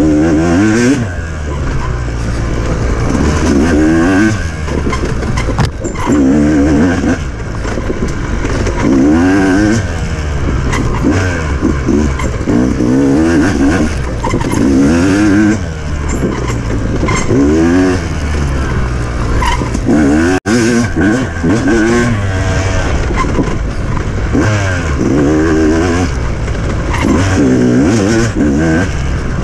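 Off-road racing engine heard up close, revving hard and falling back again and again as the rider accelerates, shifts and rolls off through the course. There is a very short dropout in the sound a little past two-thirds of the way through.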